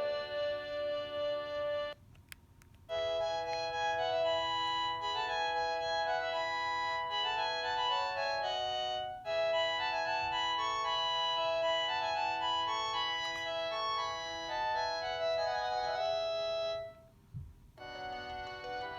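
Panasonic KX-TGA106 cordless phone handset playing its built-in electronic ringtone melodies through its small speaker. One tune stops about two seconds in, followed by a click. Another organ-like melody then plays for about fourteen seconds, and after a short pause and another click the next tune begins near the end.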